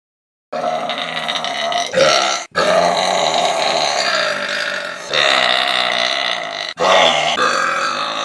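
A girl belching loudly: a run of long, drawn-out burps, about four in a row with barely a break between them, starting suddenly about half a second in.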